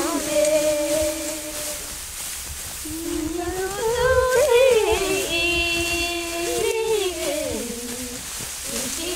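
A voice singing a traditional wheat harvesting song: long held notes joined by slow slides up and down, softer for a moment about two seconds in.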